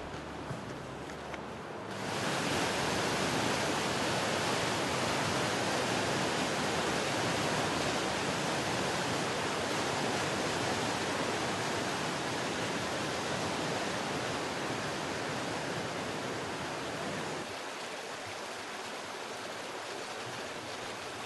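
Steady rushing of fast-flowing water, a dense even roar that cuts in abruptly about two seconds in and drops somewhat in level near the end.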